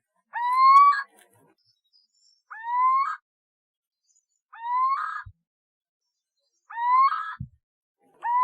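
Owlet calling: a short rising call, under a second long and ending rough, repeated about every two seconds, four times, with a fifth starting right at the end.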